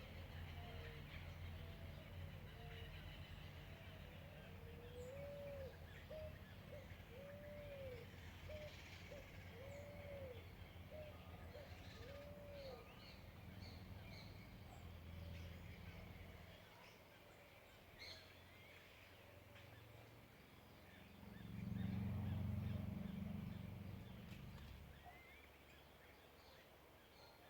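Birds calling in a quiet rural morning: a run of short, arched, repeated calls in the first half, with small high chirps throughout. A steady low hum underneath drops away past the middle, and a low rumble swells and fades near the end.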